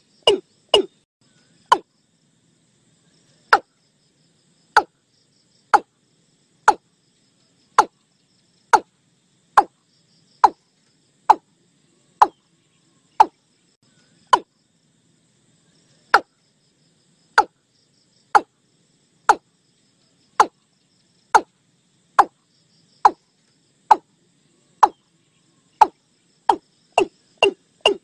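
Watercock calling: short hollow notes, each falling sharply in pitch, repeated about once a second and quickening into a fast run near the end.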